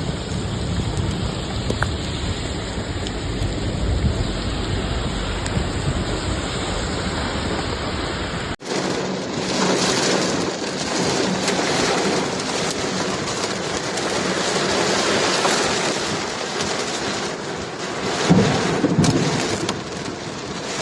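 Heavy rainstorm noise: a steady downpour with a deep rumble underneath in the first part, then after a sudden cut about eight seconds in, a brighter, steady hiss of rain.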